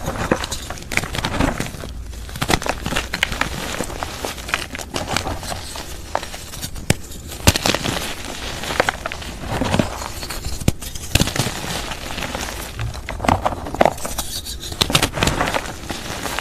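Hands crushing and squeezing dried gym chalk paste: a continuous dry crunching and crumbling, dotted with many small sharp crackles and snaps as the lumps break apart.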